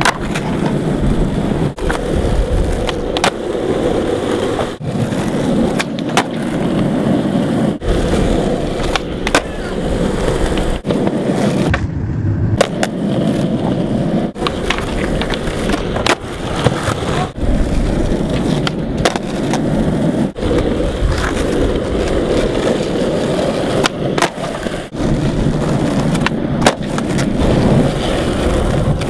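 Skateboard wheels rolling on concrete, with many sharp clacks of the tail popping and the board landing as one flatground trick follows another.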